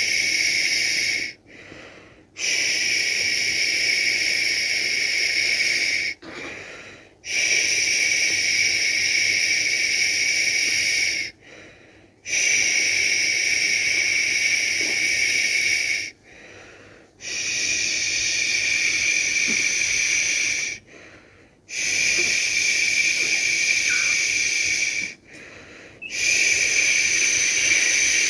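A person shushing a baby to sleep: a long, loud "shhh" held about four seconds at a time, with a short pause for breath between each one.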